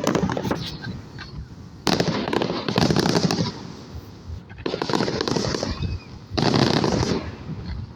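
Fireworks crackling in rapid bursts of popping, each about a second long, coming four times with short quieter gaps between.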